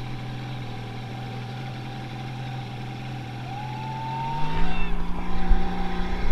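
EBKO Cimarron ski boat's engine running at a steady speed, then picking up about four and a half seconds in as the boat speeds up, its note stepping higher. Water and wind noise grows louder with it.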